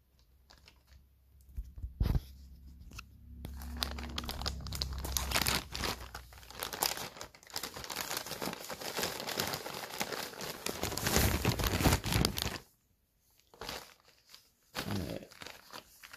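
Clear plastic zip-lock bag crinkling and rustling as it is handled, opened and the shorts inside are pulled out: a few scattered crackles and a soft thump at first, then several seconds of dense crinkling that stops suddenly, followed by two short rustles near the end.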